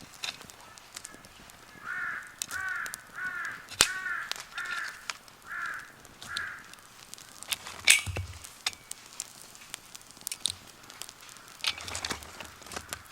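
A crow cawing, a run of about eight caws starting about two seconds in, over a wood fire crackling and popping with scattered sharp snaps. The loudest snap comes about eight seconds in.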